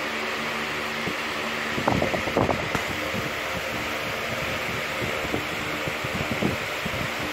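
Steady whir of an electric fan with a low hum. About two seconds in there is a short flurry of rustles and clicks, with a few smaller ticks later, from a sketchbook page and pen being handled.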